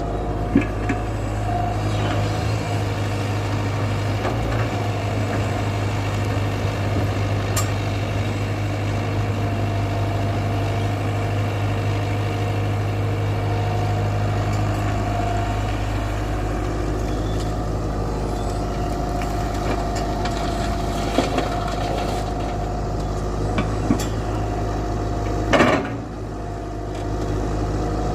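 Tata Hitachi 120 excavator's diesel engine running steadily, with a steady whine over the low hum and a few scattered knocks. One loud clank near the end, after which the engine sound briefly drops.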